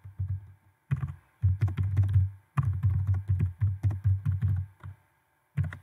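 Typing on a computer keyboard: quick runs of keystrokes broken by short pauses, with a longer pause near the end before a last couple of keys.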